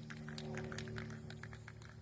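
Soft background music with sustained low notes, over faint, irregular light ticking.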